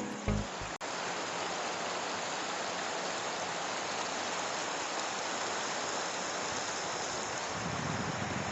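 River water rushing steadily, a continuous even wash. Some low rumble joins in near the end.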